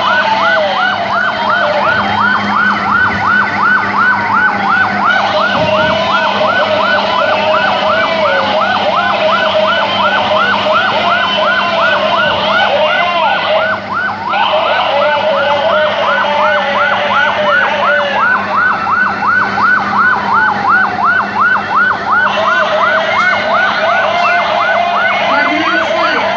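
Emergency vehicle sirens sounding together. One yelps in fast sweeps, about three a second, over a slower wail that rises and falls every few seconds.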